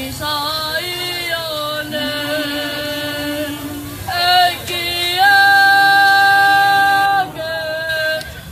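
Tongan youth choir singing, directed by a conductor, with one long held note in the middle of the passage that is the loudest part.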